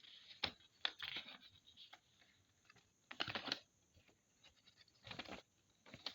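Unboxing sounds: two sharp clicks early on, followed by several short rustling, crinkling bursts of packaging being handled.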